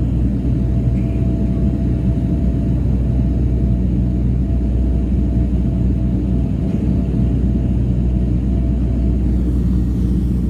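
Cabin noise of a Dash 8 turboprop airliner in flight: the engines and propellers make a loud, steady low drone with a constant hum, heard from inside the passenger cabin.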